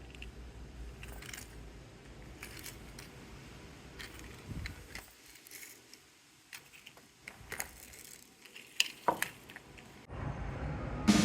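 Scattered light clicks and rattles of small hard objects being handled, with a quiet pause midway. Background music comes in near the end.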